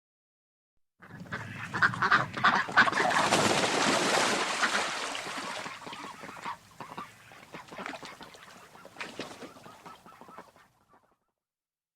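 A flock of domestic waterfowl calling all at once in a dense, overlapping chorus. It starts about a second in, is loudest over the next few seconds, then thins out and stops near the end.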